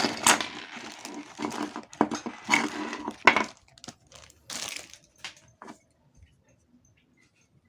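Packaging crinkling and rustling as it is handled and opened, with scattered clicks and knocks, stopping about six seconds in.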